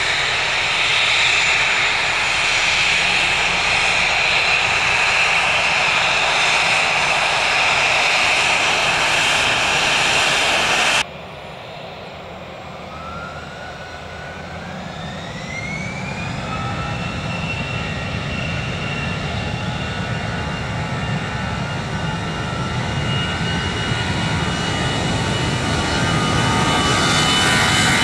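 Jet airliner engines running loud and steady, then cut off abruptly about eleven seconds in. Another jet's engines then spool up with a rising whine that settles into a steady high note, growing steadily louder to the end.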